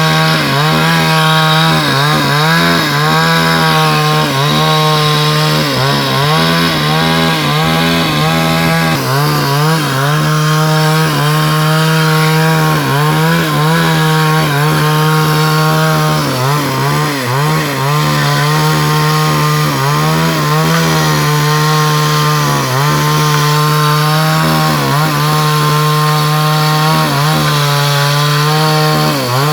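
Two-stroke chainsaw running at high revs while cutting timber, its engine note dipping briefly and recovering about once every second or two as the chain bites under load.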